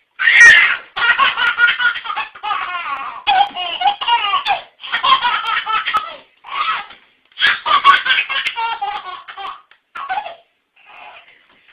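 A baby laughing hard, a string of belly laughs in short bursts with brief catches of breath between them, fading to a few softer giggles near the end.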